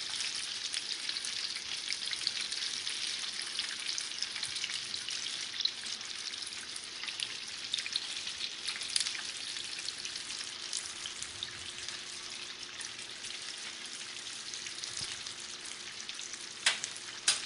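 Pieces of chicken frying in hot oil in a pan: a steady sizzle with fine crackling and spitting. Two sharp clicks sound near the end.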